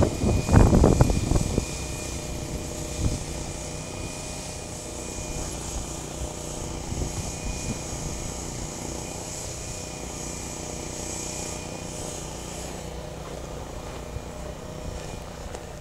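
A steady engine drone with a faint, high, steady whine. It follows a few loud, rough bumps in the first second and a half.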